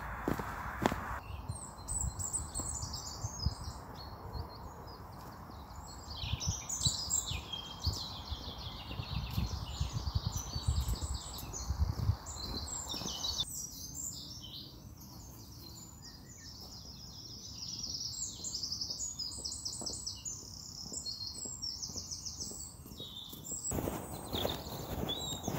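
Several songbirds singing at once in woodland, a dense chorus of overlapping trills and quick repeated chirping phrases.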